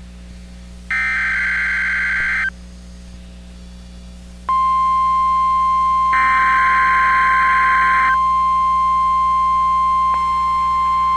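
Emergency Alert System header tones: a shrill burst of warbling digital SAME data about a second in, then, about four and a half seconds in, a steady single-pitch warning alarm tone starts abruptly and holds, with another data burst screeching over it for about two seconds. The tones mark the start of a National Weather Service alert, here a tornado watch.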